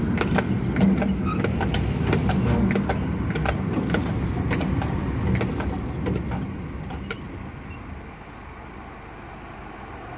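Horse-drawn tramcar running along its rails: a low rumbling rattle with many sharp clicks and knocks, dying away about seven seconds in as the tram comes to a stop.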